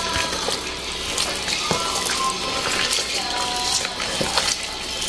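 Hands rubbing and kneading whole raw chickens with a pounded spice paste in a plastic basin: wet squelching with irregular small clicks and slaps.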